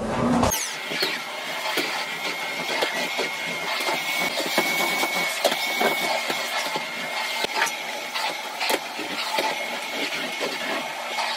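Canister vacuum cleaner running: a steady high whine with scattered clicks and rattles as it is worked over the carpet.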